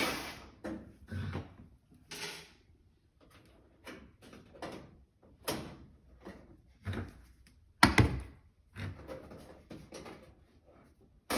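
Cordless drill-driver running in a series of short bursts, backing screws out of a range's sheet-metal back panel, with knocks and rattles of the loose metal panel between them. The loudest is a sharp metallic clank about eight seconds in.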